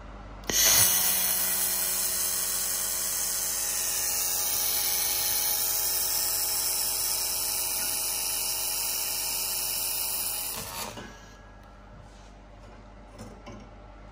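Handheld 2 kW fiber laser welding gun running in continuous mode on steel plate: a loud, steady, high hiss with the compressed-air shielding gas blowing through the nozzle. It starts about half a second in and stops after about ten seconds.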